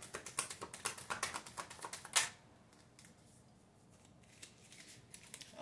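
A deck of cards being shuffled by hand: a rapid run of flicking clicks for about two seconds, ending in one louder slap of the cards.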